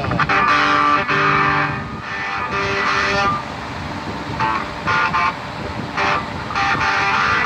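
Electric guitar played through a small Vox amplifier: chords and notes rung out in blocks of a second or so, with a quieter stretch in the middle before more short chords.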